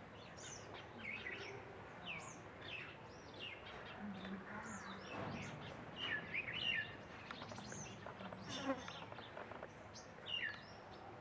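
Several small birds chirping, with many short rising and falling chirps overlapping at irregular intervals throughout.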